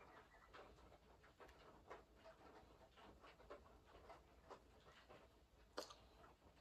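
Near silence: faint, irregular soft taps and rustles of makeup being dabbed onto the face, with one sharper click near the end.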